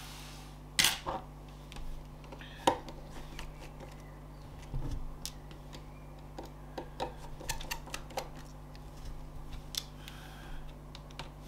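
Small clicks and taps of a precision screwdriver working the screws of a tablet's mainboard, with two sharper clicks in the first three seconds and a run of light ticks later on.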